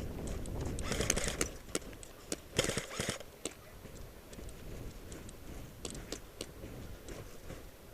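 Airsoft players rushing across snow: heavy footsteps and rustling of gear at first, thinning after about a second and a half, with irregular sharp clicks and a few louder cracks, the loudest about one to three seconds in.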